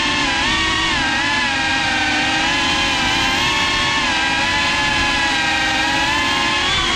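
FPV racing quadcopter's brushless motors and propellers whining steadily, heard from the GoPro mounted on the drone, with the pitch wavering slightly up and down as the throttle shifts.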